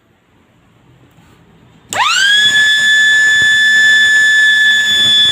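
MS-190 inauguration siren, a small 220-volt electric siren, switched on about two seconds in: its wail sweeps quickly up in pitch, then holds one loud, steady high tone.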